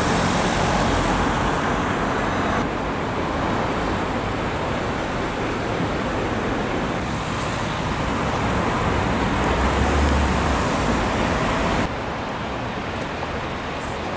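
Steady street traffic noise from passing cars, with no distinct events. The level steps down slightly near the end.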